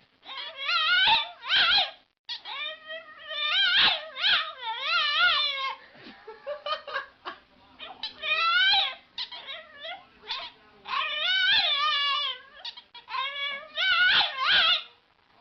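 A dog whining and yowling in a run of high, wavering cries, about six bouts with short pauses between them.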